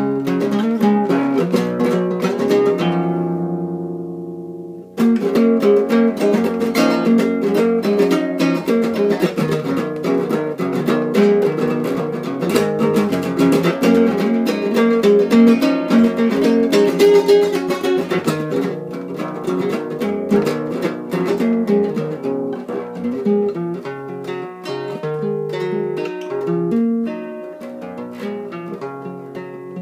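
Solo classical guitar with a capo, played fingerstyle. A fast run of picked notes leads into a chord left ringing and dying away from about two and a half seconds in. Quick picking starts again sharply at about five seconds and grows softer near the end.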